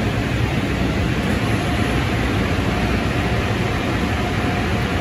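Automatic car wash tunnel equipment running: a steady, even noise with no breaks. A faint steady whine comes in about one and a half seconds in.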